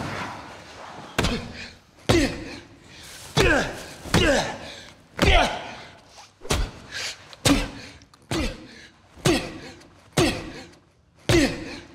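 Punches landing in a boxing sparring bout: a series of heavy thuds and slaps, roughly one a second, some in quick pairs, each followed by a short sound falling in pitch.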